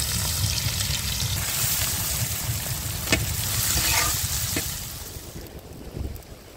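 Food sizzling in hot oil in a large cooking pan, with two sharp clicks, about three seconds in and again a second and a half later; the sizzle dies down over the last two seconds.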